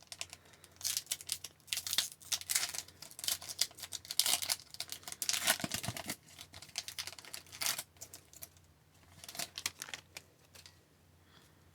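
A hockey card pack's wrapper being torn open and crinkled, with the cards inside handled: a run of crackling rustles that thins out and stops near the end.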